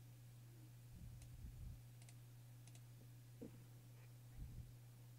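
Near silence over a steady low hum, with a few faint computer mouse clicks and some soft low bumps.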